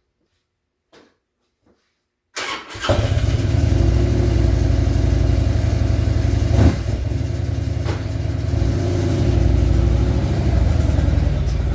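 A vehicle engine starts about two and a half seconds in and then runs steadily at idle; before that, near silence with one faint tick.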